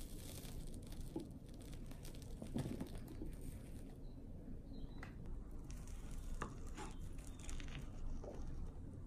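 Metal spoon breaking through the crisp top of a chocolate soufflé in a ceramic ramekin and scooping into the soft centre: faint crackles, soft squishes and a few light clicks over a low steady background rumble.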